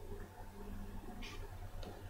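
Quiet room tone: a steady low electrical hum, with a brief soft rustle a little after a second in and a faint click near the end.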